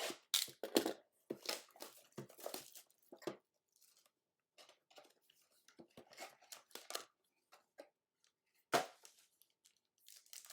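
Trading-card packaging being torn open and crinkled in short, irregular rustling bursts, with one sharp knock near the end.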